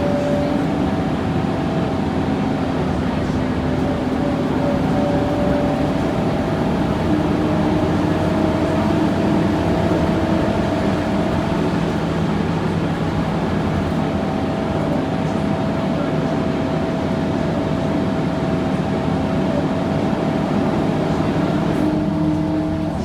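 Old gasoline-powered bus running slowly, its gearbox giving a loud, steady whine that shifts pitch slightly a few times over its engine noise.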